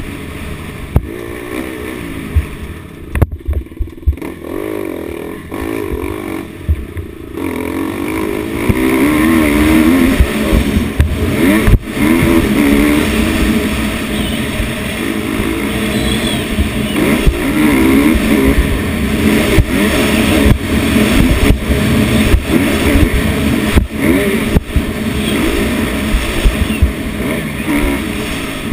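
Dirt bike engine revving up and down hard under changing throttle, heard close from a camera on the bike. It is softer for a few seconds near the start, then runs loud. Sharp thumps come through here and there.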